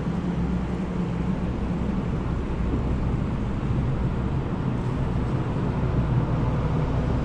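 Steady rush of a flowing river, with low wind noise on the microphone.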